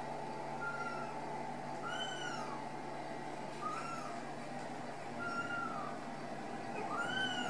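Very young Ragdoll kittens mewing: five short, high mews about a second and a half apart, most rising then falling in pitch, over a steady low hum.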